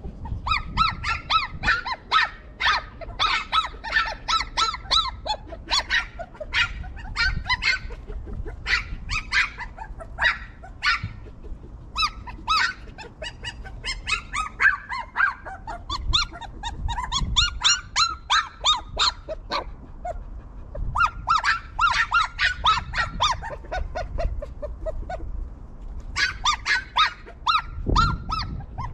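Young puppies whimpering and yipping in long runs of quick, high-pitched cries, with short breaks between the runs.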